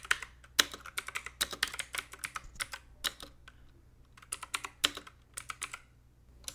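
Computer keyboard typing: rapid runs of keystroke clicks with short pauses, including a gap of nearly a second about halfway through.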